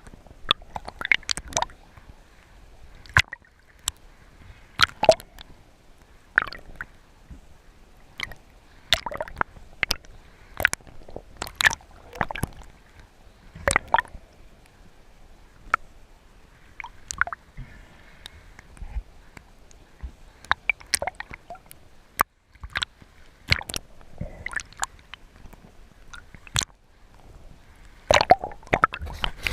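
Water sloshing and gurgling around the camera, with irregular sharp clicks and knocks every second or two.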